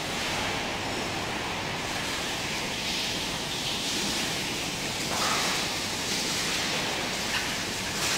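Steady rushing background noise of a large, wet market hall, with a couple of faint knocks about five and seven seconds in.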